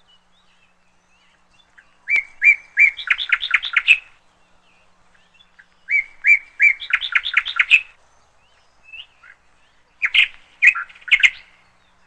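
Red-billed hornbill calling in three bouts about four seconds apart, each a few spaced notes that speed up into a rapid run of clucking notes.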